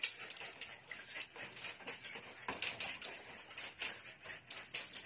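Irregular small splashes and patters of water thrown over a Doberman puppy and onto a wet tiled floor during its bath, mixed with the light clicks of the puppy's paws on the tile.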